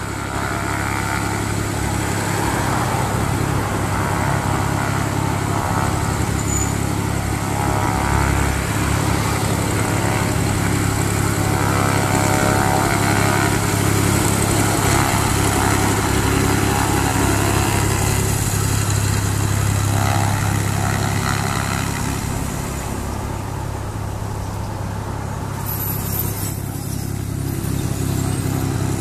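Cessna U206G Stationair's six-cylinder piston engine and propeller running at low taxi power as the aircraft taxis. It is loudest in the first two-thirds as the plane comes close, eases off after about 22 seconds, and rises a little again near the end.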